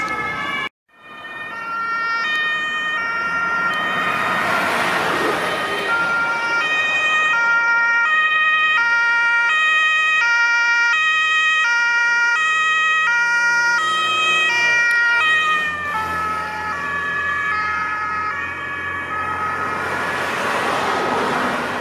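German two-tone emergency siren (Martinshorn) on a fire brigade van, alternating steadily between a high and a low note, over the vehicle's road noise. The sound cuts out briefly just under a second in, and the siren's pitch drops slightly about 15 seconds in as the van passes and moves away.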